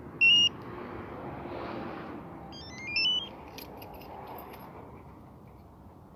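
Short electronic beep, then a quick rising run of stepped beeps about three seconds in and a few faint clicks, over a steady background hum: the car's electronics responding just before the 1ZZ engine is cranked cold.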